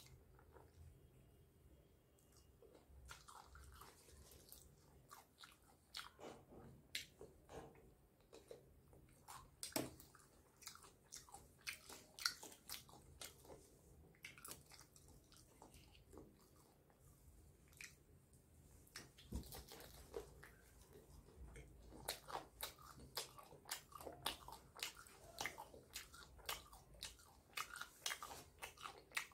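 Close-up sounds of a person biting and chewing fried chicken: irregular crisp crunches and wet mouth sounds, thicker in two long stretches with quieter pauses near the start and in the middle.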